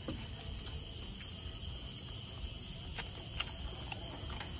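Faint eating sounds from grilled chicken eaten by hand: chewing, and a few small clicks as meat is picked off the bone, mostly after about three seconds. A steady low outdoor rumble runs underneath.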